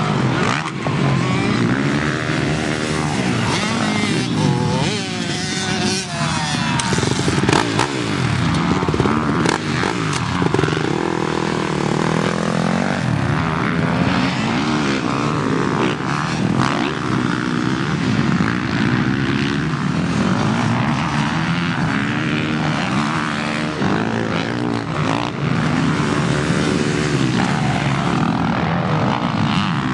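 Motocross dirt bike engines revving hard, their pitch climbing and dropping over and over as the throttle opens and closes.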